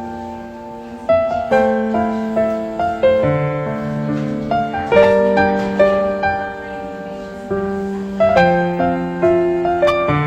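Slow, gentle piano music: single notes and chords, each struck and then left to ring.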